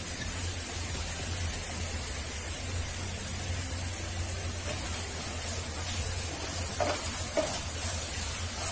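Ginger, garlic and cumin pastes sizzling steadily in hot oil in a nonstick frying pan, with a few light scrapes of a wooden spatula stirring them near the end.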